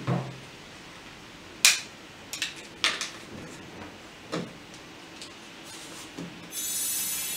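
Scattered sharp knocks and clicks of a knife, a vegetable peeler and a zucchini being set down and handled on a wooden cutting board. Near the end a steadier scraping hiss starts as the peeler strips the zucchini's skin.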